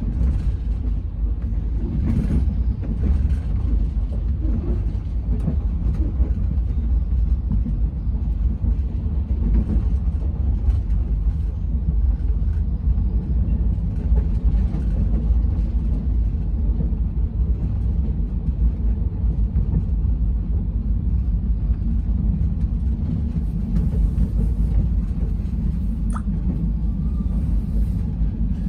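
Steady low running rumble of an Indian Railways express train at speed, heard from inside a closed air-conditioned coach.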